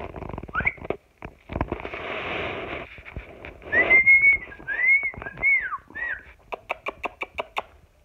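Cockatiel whistling a short phrase of rising-and-falling notes, followed by a quick run of sharp clicks, about eight a second.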